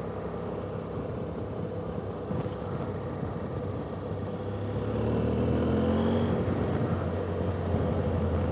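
Motorcycle engine running at low road speed, its note rising as the bike picks up speed about five seconds in.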